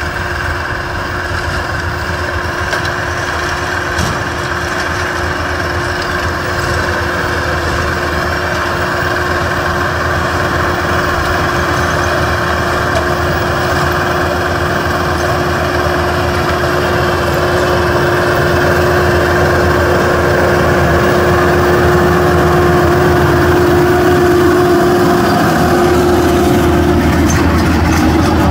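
Yanmar YT490A tractor's diesel engine running steadily under load while its PTO-driven Maschio rotary tiller churns the soil, growing gradually louder as the tractor comes closer.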